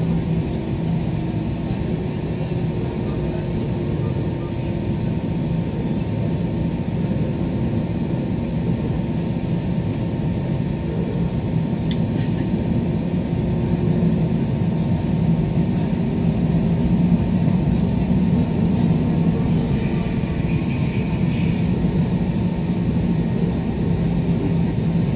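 Steady cabin drone of an Airbus A320ceo with its jet engines at idle while taxiing on the ground, a low rumble with a steady hum, getting a little louder midway.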